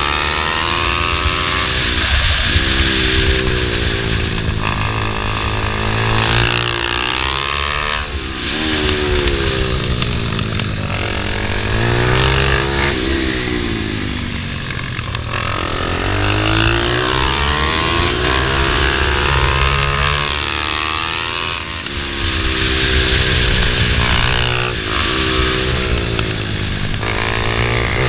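Pit bike engine ridden hard, revving up and easing off over and over, its pitch climbing and falling every few seconds with brief dips between.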